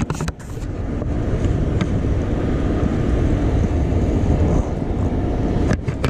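Wind buffeting the microphone on a small boat, a continuous low rumble. A few short knocks come just after the start and again near the end.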